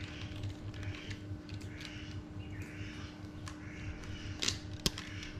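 Bird calling repeatedly, a harsh call roughly twice a second, over a steady low hum, with two sharp clicks about four and a half seconds in.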